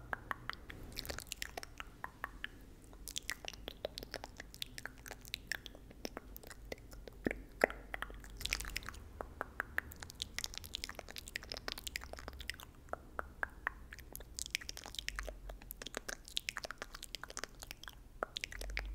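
Close-miked ASMR mouth sounds: a dense, irregular run of soft wet mouth clicks and tongue clicks, several a second.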